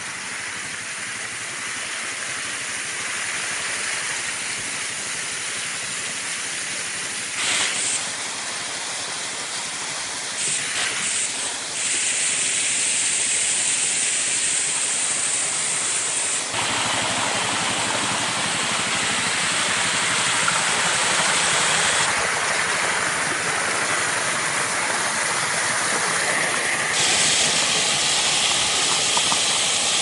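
Small forest waterfall pouring over a mossy rock face into a creek: a steady rush of falling water that grows louder, stepping up about halfway through.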